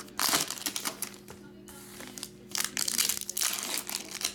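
Foil wrapper of a trading-card pack crinkling and crackling in irregular bursts as hands work it open, easing off for about a second midway before starting again.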